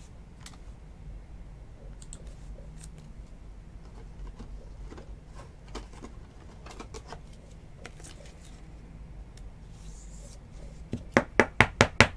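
Trading cards and a clear plastic card holder being handled: faint rustles and light taps, then a quick run of about six sharp plastic clicks near the end.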